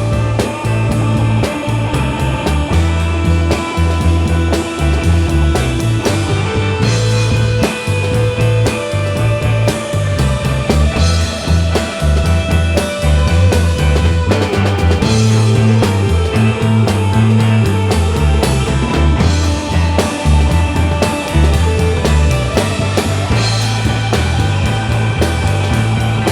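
A rock band playing an instrumental passage, with drum kit, electric guitar and a strong bass line, and no singing.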